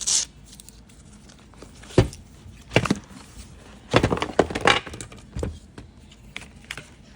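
iPad box packaging being pulled open and handled: several short bursts of crinkling and rustling, with a cluster of them a little after the middle.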